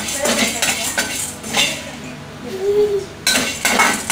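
Metal spoon scraping and stirring whole black peppercorns, cumin and fennel seeds as they dry-roast in a hammered aluminium kadai, a quick run of scraping strokes that stops briefly after the middle and then starts again.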